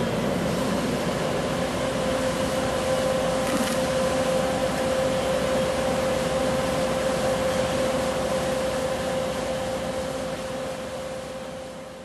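Truck-mounted 50,000-watt microwave generator rig running, a steady machine drone with a constant hum, as the machine warms up. It fades out near the end.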